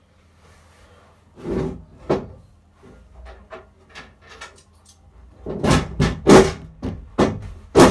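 Irregular knocks and clunks of someone handling a coin-operated kiddie ride, a few soft taps first, then a cluster of louder bangs near the end.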